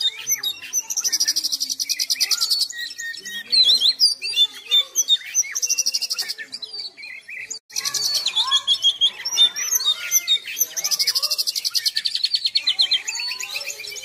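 Oriental magpie-robin (kacer) singing without a break: a varied run of quick whistled phrases and slurs, broken four times by fast rattling trills, with a short pause about seven seconds in.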